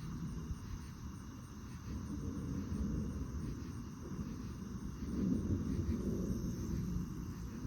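Crickets chirring steadily at night, a fine even pulsing high in pitch. Under it runs a low, uneven rumble that swells about five seconds in.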